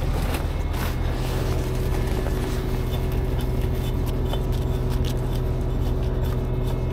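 Heavy diesel truck engine idling steadily, a constant low hum, with a few faint light clicks over it.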